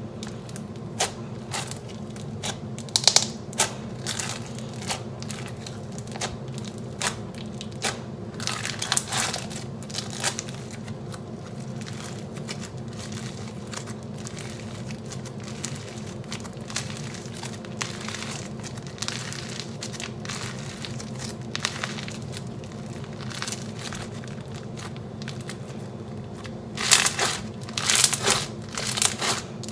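Floam, slime packed with small foam beads, being squeezed and pressed by hand for ASMR, giving irregular crunchy crackling pops, with a denser, louder run of crackles near the end.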